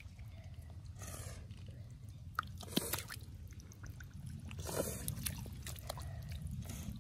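A hand splashing and stirring in a shallow muddy puddle: short wet splashes and squelches of water and mud, with sharper splashes nearly three seconds in and again near five seconds.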